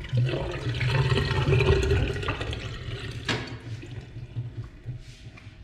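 Water sloshing and splashing in a stainless steel sink as raw fish is washed by hand, loudest in the first three seconds, with a sharp knock about three seconds in; water dripping off the fish as it is lifted out follows.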